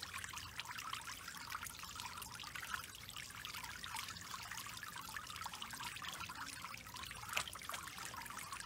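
Water jets from a splash-pad sprinkler mat spraying and pattering onto the plastic, a steady fine splashing with raccoons dabbling in it.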